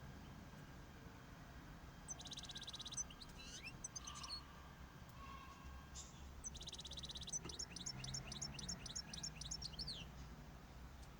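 A small cage bird singing twice in short phrases. Each phrase opens with a buzzy rattle, and the second ends in a quick run of falling chirps.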